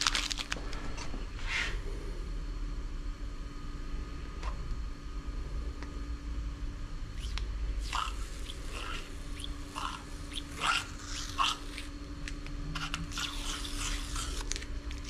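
Masking tape being peeled off the painted edges of a cast-iron cylinder head: short intermittent tearing and crinkling pulls, coming more often in the second half.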